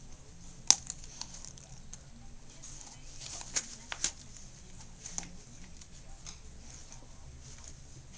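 Dog chewing and tearing at a fabric toy: soft rustling and gnawing with a few sharp clicks, the loudest about a second in.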